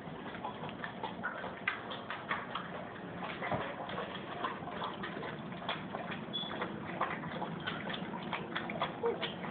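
Light, irregular clicking and tapping of German shepherd puppies' claws on a hardwood floor as they scamper about.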